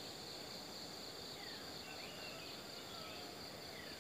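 Faint, steady high-pitched chirring of insects, with a few short falling chirps over it.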